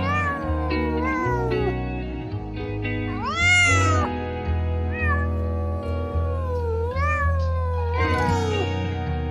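Domestic cat meowing repeatedly, about six drawn-out calls that rise and fall in pitch, the loudest about three and a half seconds in, over background music.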